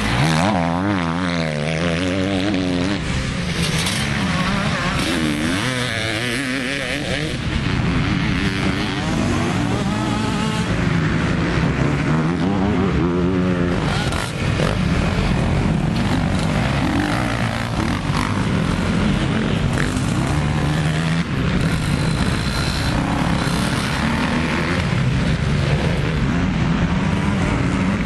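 Motocross dirt bike engines revving up and dropping back in quick, repeated sweeps as the riders work the throttle. At times two bikes are heard together.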